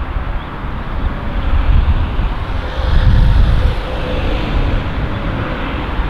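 Wind buffeting the microphone in gusts, a low rumble that swells and eases, over a steady outdoor hiss with a faint steady hum in the middle.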